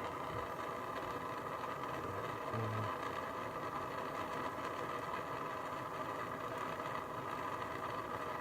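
Propane torch flame burning steadily while it heats a copper ring terminal to melt silver-bearing solder into it. A brief low thump about two and a half seconds in.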